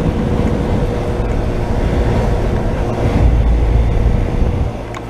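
Comfort Range heat pump outdoor unit running in heat mode: a steady hum of compressor and condenser fan with a faint steady tone. A heavier low rumble builds in the second half and drops away near the end.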